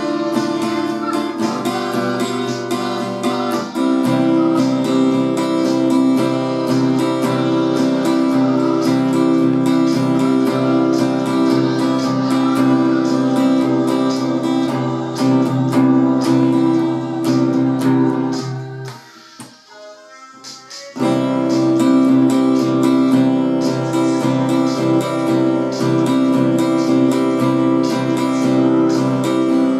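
Steel-string acoustic guitar strummed in steady chords, with a short break about nineteen seconds in before the strumming comes back suddenly.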